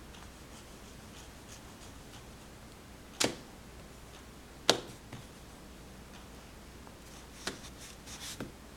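A few sharp clicks and taps of small hard objects. The two loudest come about three and four and a half seconds in, a lighter one follows near the end, and then a quick little cluster.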